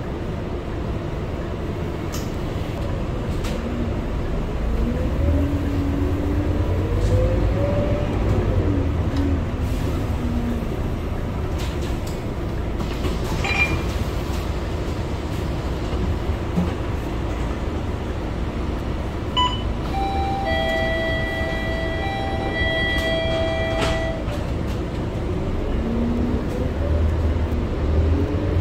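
Inside a Scania K230UB diesel city bus under way: a steady low engine rumble, with a rising whine as the bus pulls away early on and again near the end. A short electronic beep sounds about halfway through, and a steady tone at several pitches holds for a few seconds about three-quarters of the way in.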